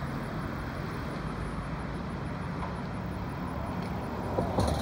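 Steady low rumble of distant engines: heavy earthmoving equipment and road traffic.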